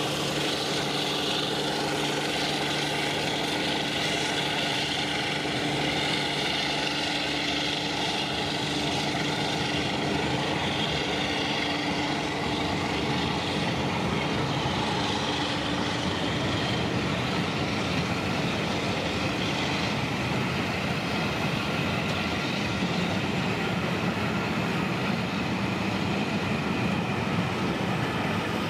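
A train of passenger coaches rolling slowly past, with the Class 52 diesel-hydraulic locomotive's Maybach engine running steadily ahead of them. By the recordist's ear the locomotive is running on only one of its two engines.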